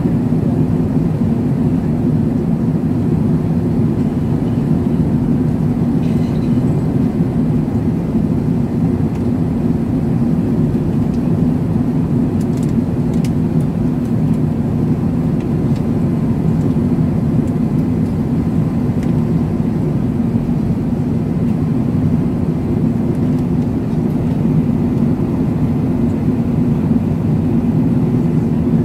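Steady cabin noise of an Airbus A380 in flight on descent: a low, even rumble of airflow and jet engines, heard from inside the passenger cabin, with a faint steady whine above it.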